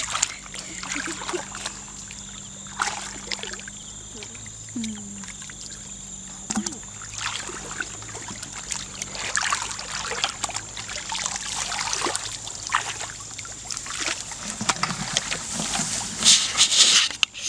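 Hands splashing and trickling in shallow muddy paddy water in irregular small splashes, with a louder run of splashing near the end as feet wade through the water.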